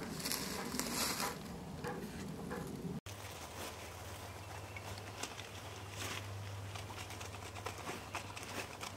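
Dry leaf litter rustling and crackling under hand, with scattered small clicks. An abrupt break about three seconds in; before it, a denser outdoor rustle with a low rumble.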